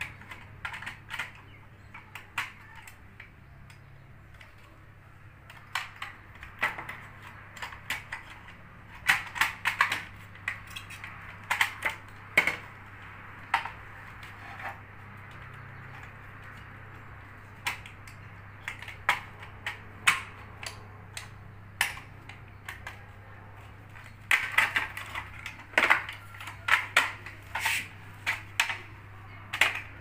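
Irregular clicks and clatters of hard plastic as a Samsung washing machine control panel housing and its circuit board are handled and worked apart with a screwdriver, coming in quick clusters with gaps between. A faint steady low hum runs underneath.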